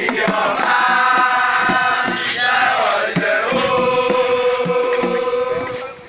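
Men's voices chanting together in long held notes, over strokes of a hand drum.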